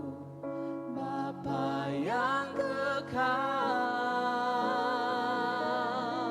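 Worship song: a voice singing with vibrato slides up about two seconds in, then holds one long note.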